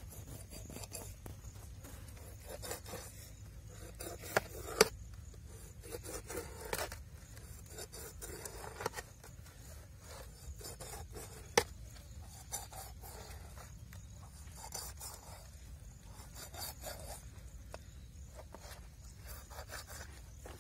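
Knife scraping along the body of a whole kutlak fish on a stone slab, in uneven rasping strokes. A few sharp knocks of the blade stand out, two close together about four seconds in and one about eleven seconds in.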